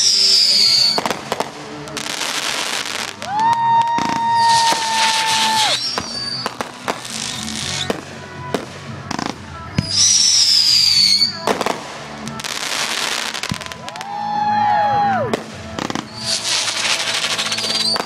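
Fireworks going off: sharp bangs and repeated second-long bursts of crackling, with a few falling whistles. Music plays underneath.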